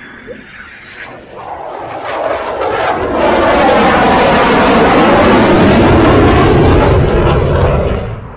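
Fighter jet's engines as it flies a low pass overhead: the noise swells over the first few seconds, stays loud and steady for about four seconds, then eases off and cuts off suddenly near the end.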